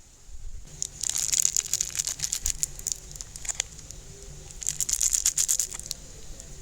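Crinkling, crackling handling noise in two bouts of quick clicks, the first about a second in and the second near the end.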